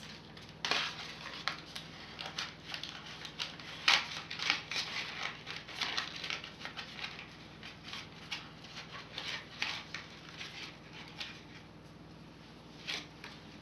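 Small toy figure being worked free of its packaging: irregular clicks, snips and rustles of plastic and card, the loudest click about four seconds in, fewer sounds near the end.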